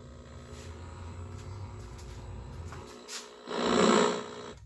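1969 Zenith portable tube TV sounding through its speaker: a steady low buzzing hum, then a click about three seconds in, followed by about a second of loud static hiss.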